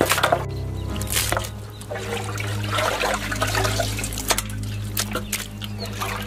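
Water splashing and trickling as raw chicken pieces are washed by hand in a metal basin, with irregular short splashes and clinks.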